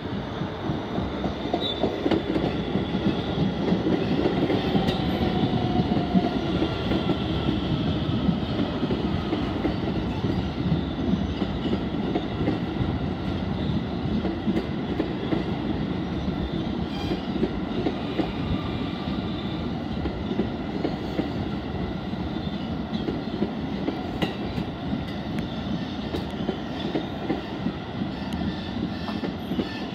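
Kawasaki R160B subway train with Siemens propulsion passing close by: steady wheel-on-rail rumble with a few sharp clicks, and the traction motors' electronic whine sliding in pitch. It builds up over the first few seconds, then runs steadily.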